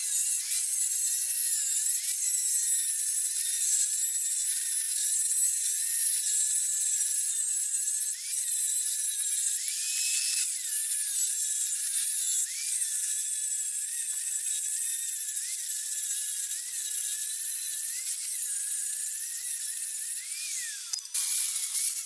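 Electric angle grinder cutting through steel plate with an abrasive disc: a steady grinding rasp, with the motor's whine dipping and rising as the disc bites into the metal. A sharp click about a second before the end, after which the grinding goes on.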